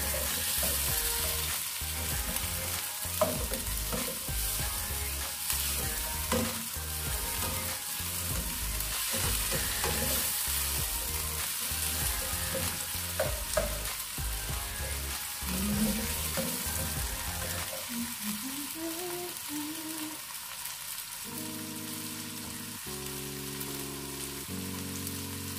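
Diced tomato, onion and garlic sizzling in hot oil in a nonstick wok, with a spatula stirring and knocking against the pan; this is the sauté stage. Soft background music comes in toward the end.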